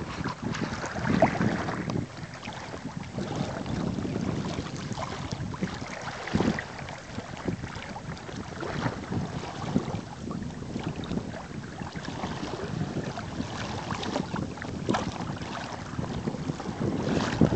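Wind buffeting the microphone over water rushing and splashing along the hull of a sailing kayak, rising and falling in gusts, louder in the first couple of seconds and again near the end.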